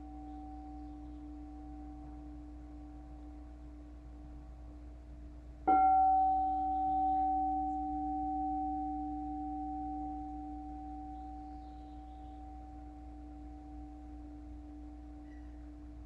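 A singing bowl is struck about six seconds in and rings with a low tone and a higher tone that slowly fade. Before the strike, the tones of an earlier strike are still dying away.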